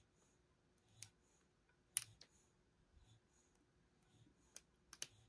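Faint, scattered small metal clicks of a hook pick probing the second pin of a pin-tumbler lock held under tension, with two sharper clicks about two seconds in and near the end.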